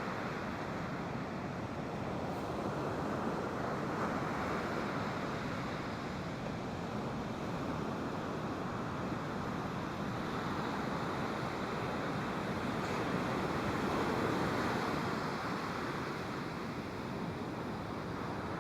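Ocean surf washing on the beach, a steady rush that swells and eases, loudest about fourteen seconds in.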